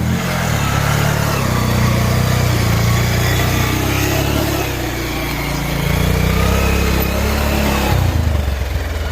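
Motorcycle engine running on a rough off-road track, its pitch rising and falling with the throttle, then settling lower about eight seconds in.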